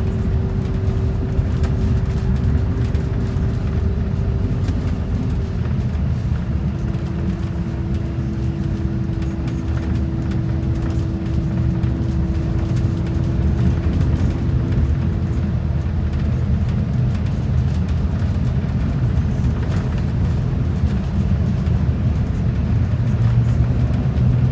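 Express bus driving, heard from on board: a steady low rumble of engine and road noise, with a thin whine that drops slightly in pitch about five seconds in and fades out about two-thirds of the way through.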